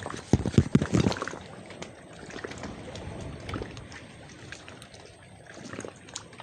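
Water lapping and trickling. In the first second or so there are several heavy low thumps, then a steady wash of water noise with small scattered clicks.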